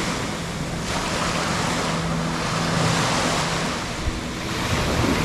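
Ocean surf washing against shoreline rocks, a steady rushing that swells and eases, with wind buffeting the microphone. A faint low steady hum runs underneath and stops a little past the middle.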